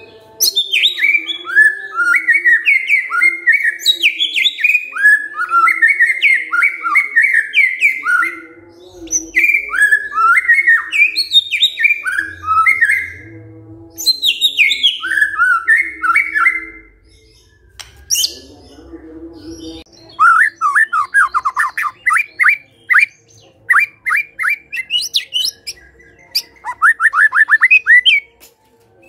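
White-rumped shama singing: loud, varied whistled phrases in quick succession, with short pauses about 8 and 14 seconds in. Later come two bursts of rapid, sharply falling notes.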